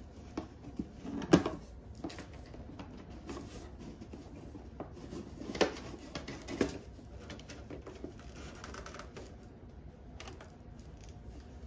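Clicking, scraping and knocking of a perfume gift box and its fitted insert being handled as the bottle is pushed and pried out from the back, with a sharp knock about a second in and two more around six seconds.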